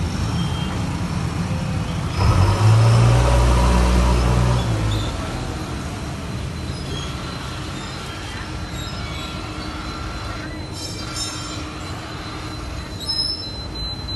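Oxy-fuel gas welding torch hissing steadily on a scooter's exhaust silencer. A motor vehicle passes close by, and its engine rumble is loudest from about two to five seconds in.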